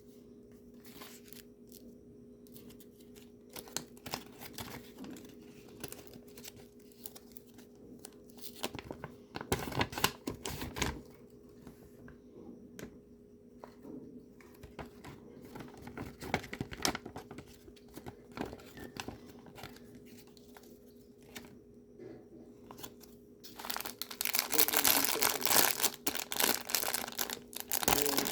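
Plastic toy packaging being handled, crinkled and torn open, with scattered clicks and rustles. About three-quarters of the way through it becomes much louder and denser crinkling. A faint steady hum runs underneath.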